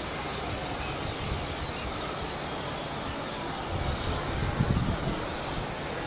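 A large flock of birds chattering with many high, short calls over a steady background of city noise, with a low rumble swelling about four seconds in.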